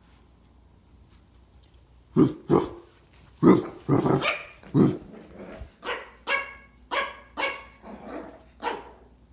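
Pug puppy, eight weeks old, barking: a run of about a dozen short yaps, starting about two seconds in.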